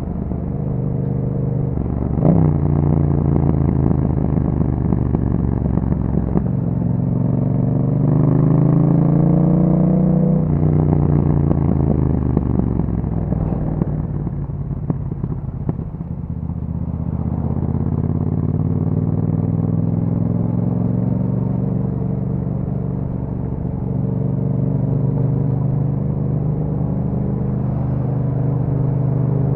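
Yamaha MT-07's 689 cc parallel-twin engine running through an Akrapovic exhaust while the bike is ridden. The engine note jumps sharply about two seconds in, climbs steadily in pitch under acceleration until about ten seconds in, falls away until about sixteen seconds in, then holds a steady, slowly rising note.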